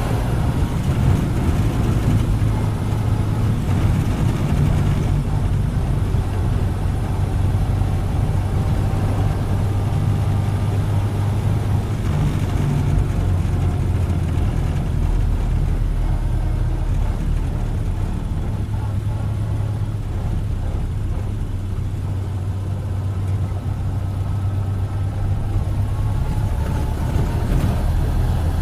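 A 1931 Ford Model A's four-cylinder engine running as the car is driven: a steady low drone with a faint whine that shifts in pitch, rising near the end.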